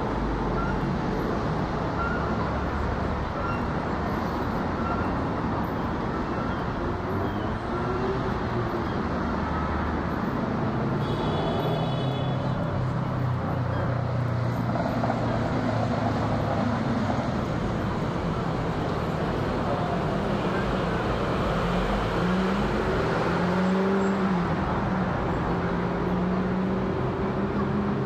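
Steady jet roar of a Boeing 777-300ER's two GE90-115B turbofans at climb power, heard from the ground as the airliner climbs away after takeoff.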